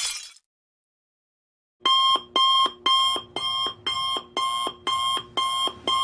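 Alarm clock sounding: about nine repeated ringing beeps, roughly two a second, starting about two seconds in. A short noisy burst fades out at the very start.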